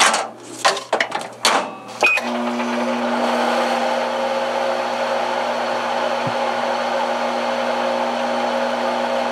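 Microwave oven started: a few clicks, a short beep about two seconds in, then the microwave running with a steady hum.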